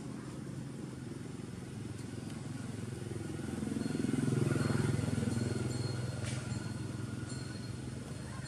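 A motor vehicle engine running in the background, a steady low hum that grows louder about four seconds in and eases off again, as of a vehicle passing.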